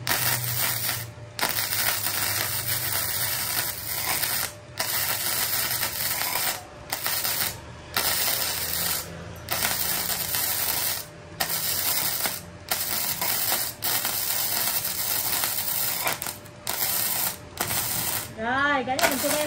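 MIG welding arc from a KOBE MIG-272 PRO welder: a steady, very smooth crackle laid down in runs of one to two seconds, breaking off briefly about ten times as the arc is stopped and struck again.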